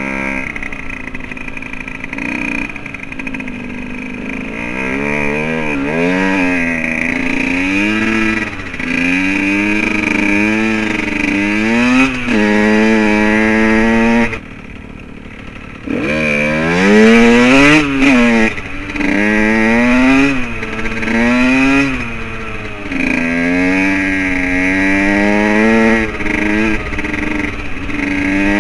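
Dirt bike engine under way, revving up and dropping back again and again, the pitch climbing with each pull of the throttle. About halfway through the throttle is shut for a second or so and the engine goes quieter, then it revs up steeply again.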